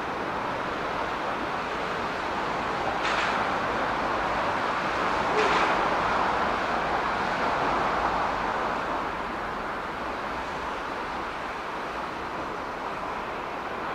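Yard switcher slowly shunting a rake of 115-series electric train cars: a steady running noise of the train moving over the rails, with two brief sharper noises about three and five seconds in.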